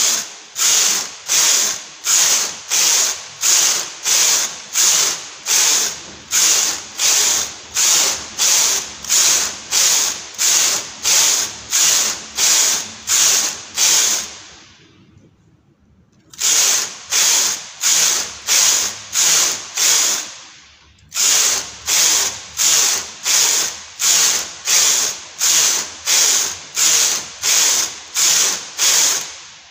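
Chunky-gauge knitting machine carriage pushed back and forth across the needle bed, knitting row after row: a rhythmic rasping clatter about every 0.6 s, with two brief stops partway through.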